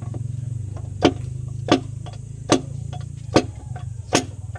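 Five sharp, ringing hammer blows on metal, evenly spaced about one every 0.8 seconds, over a steady low motor hum.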